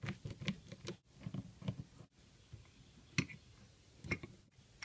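Scattered light clicks and ticks of small metal and plastic distributor parts being handled as screws are taken out of a 1995 Honda Accord distributor's internals, with two sharper ticks about three and four seconds in.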